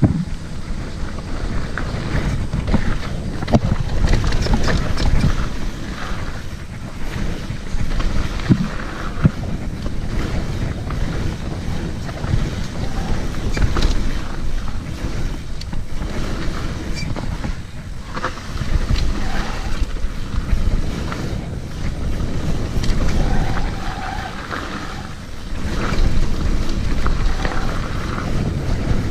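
Wind rushing over the camera microphone of a mountain bike descending a downhill trail, with tyre noise on the dirt and frequent short knocks and clatters as the bike goes over bumps.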